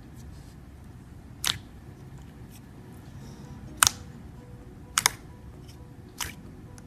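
Slime being pressed and worked by hand, giving sharp clicking pops at irregular intervals. There are four main pops, one of them a quick double.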